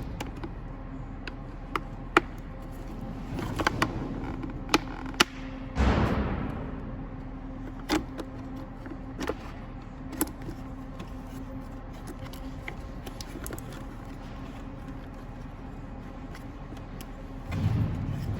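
Plastic parts of a car blower motor housing being handled and fitted together: scattered sharp clicks and knocks, with a couple of rustling swishes, over a steady low hum.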